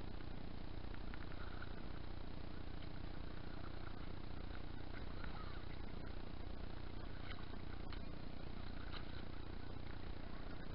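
Steady low rumble with faint, irregular splashes and drips from a paddle dipping into the water on each stroke.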